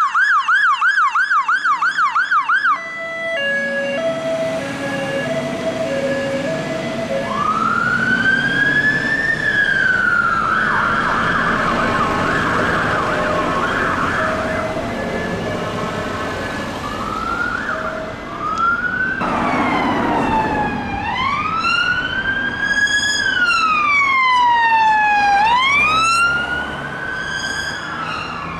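Fire engine siren changing patterns: a fast yelp, then a low two-note tone, then a slow rising and falling wail with a quicker warble in the middle. About two-thirds of the way through it gives way to a police car's wail siren, each slow sweep rising and falling over two to three seconds, over traffic noise.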